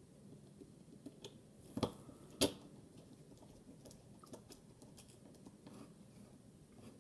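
Light clicks and taps of a Kershaw Dividend pocket knife being handled and fitted back together, with two sharper clicks close together about two seconds in.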